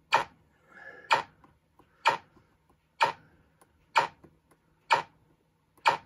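Sharp, evenly spaced clicks, about one a second, seven in all, each with a short ringing tail.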